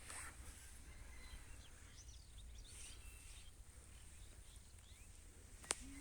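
Faint outdoor ambience: a few soft, distant bird chirps over a low rumble and a steady faint high hiss, with one sharp click near the end.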